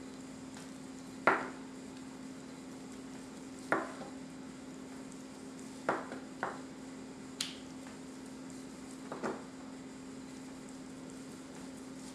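A knife knocking down onto a plastic cutting board as slices are cut from a boiled corned beef brisket: about six short, sharp taps at uneven intervals, over a steady low hum.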